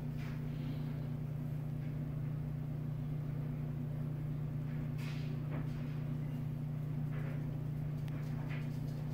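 A steady low hum, like a fan or motor running, with a few faint clicks or taps about halfway through and near the end.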